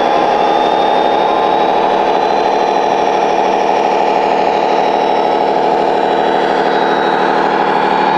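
RC model truck's electronic engine-sound module playing a steady idling truck diesel through its small speaker.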